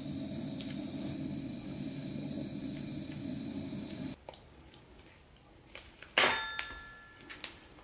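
A steady low hum cuts off abruptly about four seconds in. A couple of seconds later comes a sharp metallic clink of a thin metal sculpting tool, ringing briefly, among a few lighter taps.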